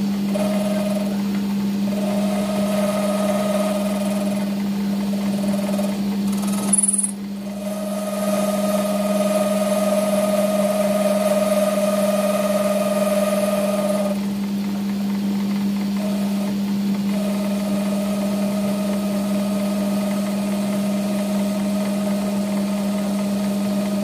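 Metal lathe running at high speed with a steady hum while a cutting tool skims the copper commutator of a router armature, giving a higher whine that comes and goes as the tool bites. There is a short sharp click about seven seconds in. The cut trues up a blackened commutator that was making the carbon brushes spark and wear out fast.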